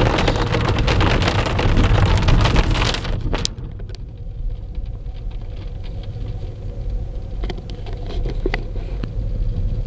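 Hail and heavy rain drumming on a car's roof and windscreen, heard from inside the moving car over its low road rumble. About three seconds in the drumming drops off suddenly, leaving scattered drops over the rumble.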